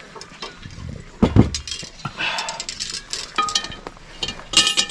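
Metal cookware being handled: a dull knock about a second in, then ringing clinks near the end as the cast-iron Dutch oven and its lid are set down and moved.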